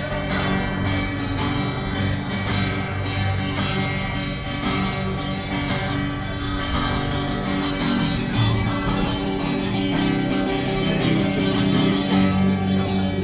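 Acoustic-electric guitar played through a small amplifier, strummed and picked in a steady tune.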